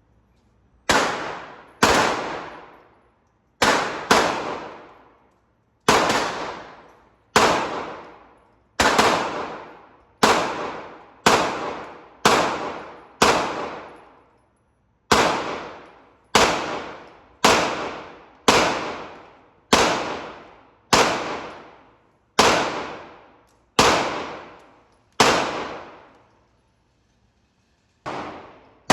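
Handgun fire at a shooting range: a string of about twenty single shots, roughly one a second, each a sharp crack with a ringing tail that dies away within about a second.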